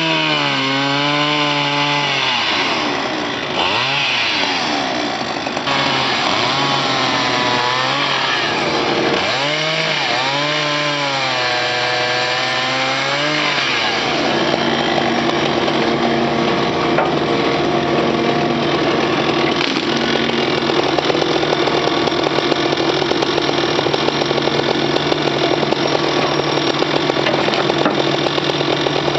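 Chainsaw revving up and down again and again as it cuts through felled poplar wood. About halfway through this gives way to a steady engine running, from the Hitachi tracked excavator handling the trunks with its log grapple.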